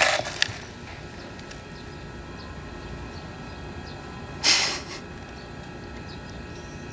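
Quiet room tone with a faint steady hum. Paper crinkles briefly at the start, and a single short soft rustling noise comes about four and a half seconds in.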